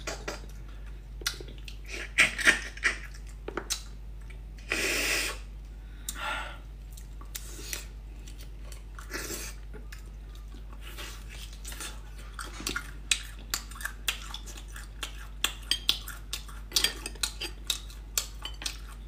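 Close-up eating sounds of beef bone marrow: wet sucking and chewing, with many sharp clicks and scrapes of a metal spoon against the bone, thickest in the second half, and a louder noisy stretch about five seconds in.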